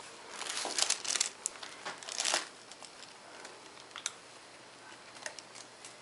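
Rustling, crinkling handling noise in two bursts, the first from about half a second to a second and a half in and the second just past two seconds, then a few faint clicks.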